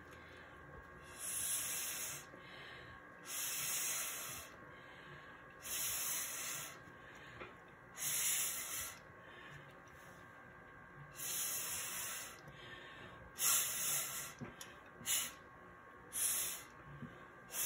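Breath blown hard through a plastic straw in about eight hissing puffs, each about a second long and a couple of seconds apart, pushing wet acrylic paint across a polymer clay piece.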